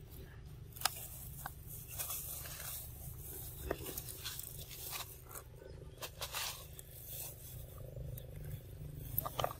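Long-tailed macaques biting and chewing crisp green fruit, with scattered crunches and crackles of dry leaves, over a steady low rumble.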